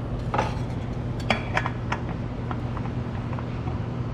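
Light metallic clicks and clinks as a new spin-on oil filter is fitted to its housing by hand, the sharpest few coming between about one and two seconds in, over a steady low hum.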